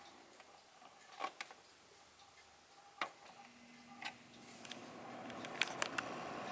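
Vornado VH2 fan heater starting up: a few clicks, then its freshly oiled fan motor begins to hum about three seconds in and the rush of air builds steadily. It runs quietly.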